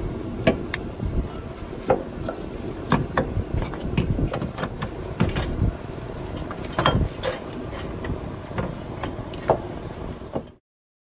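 Irregular metallic knocks and clicks of a Honda Odyssey's A/C compressor being worked by hand past the crankshaft pulley and brackets, over a steady low rumble. The sound cuts off suddenly near the end.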